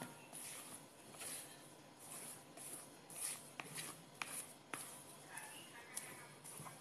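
Rubber spatula folding whipped egg-white sponge batter in a plastic bowl: faint, repeated wet swishes, about two strokes a second, with a few light clicks of the spatula against the bowl around the middle.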